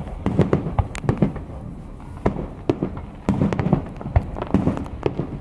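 Aerial firework shells bursting overhead: a rapid, irregular string of sharp bangs and crackles, several a second.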